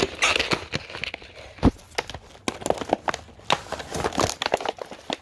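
Packaging of a new Craftsman wrench and socket set being torn open: crinkling and tearing with scattered clicks, and one sharp knock about one and a half seconds in.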